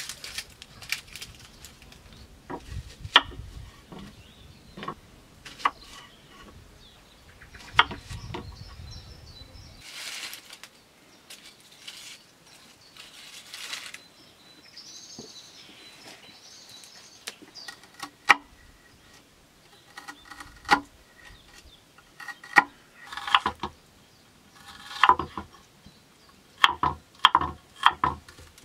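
Irregular knocks, taps and clicks of hand work at a building site, coming thicker near the end, with a few faint high chirps in the middle.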